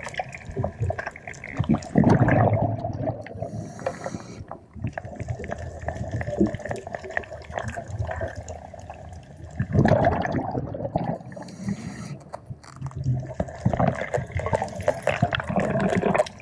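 Water sound recorded underwater: a steady muffled wash with louder bubbling surges every few seconds, about 2, 10 and 14 seconds in, and two short high hisses between them.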